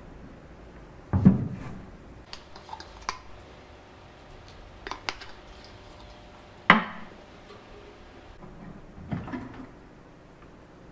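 An old wooden chest and small objects being handled on a workbench: two loud wooden knocks, about a second in and a little past the middle, with lighter clicks and taps between them and a softer knock near the end.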